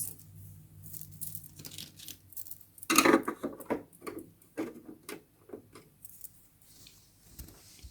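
Plastic toy dollhouse pieces being handled: a scattering of light clicks and knocks, the loudest about three seconds in.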